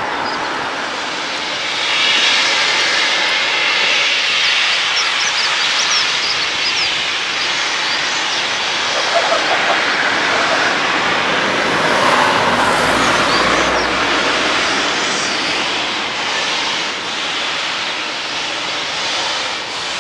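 Steam locomotive letting off steam: a steady, loud hiss that swells about two seconds in.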